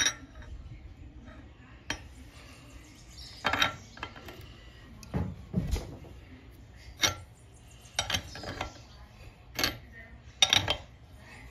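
Steel combination wrench clinking and knocking against the brass outlet fitting and aluminium head of a pressure-washer pump as the fitting is loosened and unscrewed: a string of irregular metallic clinks, with a duller knock about midway.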